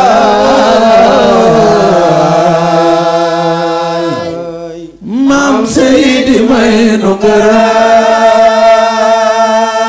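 Wolof devotional praise chant sung with long held notes. The singing fades and breaks off briefly about five seconds in, then resumes with another long held note.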